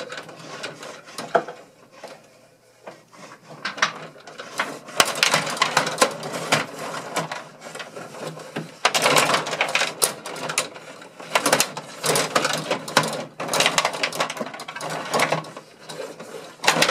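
Gretzky rod-hockey table in play: the metal control rods slide and spin, and the plastic players clack, in rapid uneven bursts of rattling that grow busier about five seconds in.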